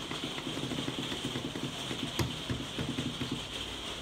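Steady hiss of rain, with a single sharp click about halfway through as the Dry button on a Hotpoint FDL8640 washer-dryer is pressed to step up the drying time.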